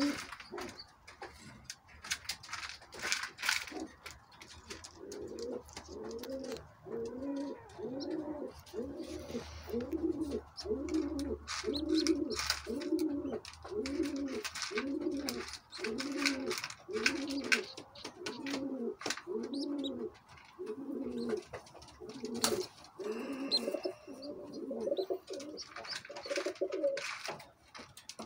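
Pigeon cooing: a long, even run of short, low rising-and-falling coos, about three every two seconds, starting about five seconds in, with scattered sharp clicks.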